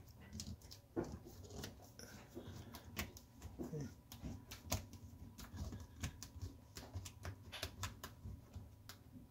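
Scattered clicks and light taps, irregular and a few a second, as fingers press a new rubber door gasket into its channel along the stainless-steel tub edge of a Bosch dishwasher.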